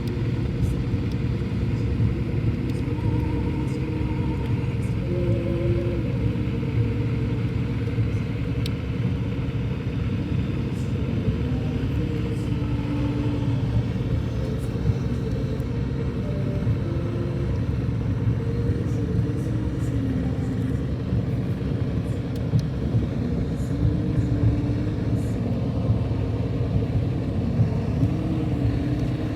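Steady low rumble of a motor vehicle engine, with faint engine tones that drift up and down now and then.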